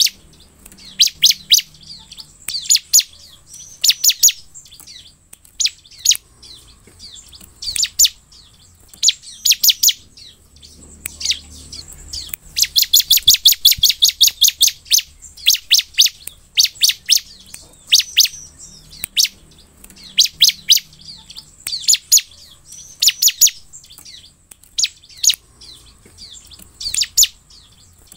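Bar-winged prinia (ciblek) singing: short bursts of sharp, high chirps about once a second, with one longer rapid run of notes about halfway through.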